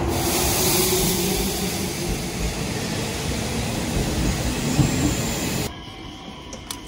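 Electric commuter train running alongside a station platform: a loud, steady rumble and rush with a faint hum underneath. It cuts off abruptly near the end, leaving quieter station noise and a few sharp clicks.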